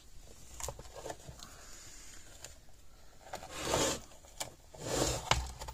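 Nylon cable ties being threaded through slots in a metal chassis and pulled through their ratchets, with small clicks and scrapes of handling. Two longer rasping pulls come about three and a half and five seconds in.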